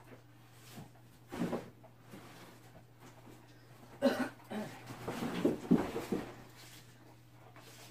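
A person coughing and clearing their throat off-camera: one short cough about a second and a half in, then a longer bout from about four to six seconds, over a steady low hum.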